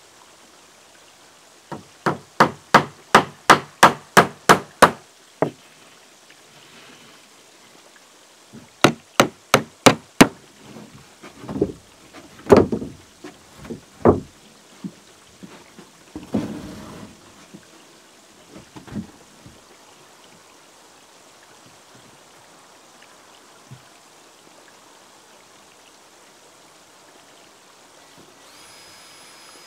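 Hammer driving nails into wooden cladding boards: two quick runs of sharp strikes, about three a second, followed by a few heavier, duller knocks on the timber.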